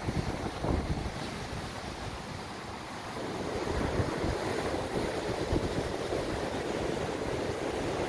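Sea surf washing against the rocky shore, a steady rushing wash, with wind buffeting the microphone in low rumbling gusts. The wash grows louder about three seconds in.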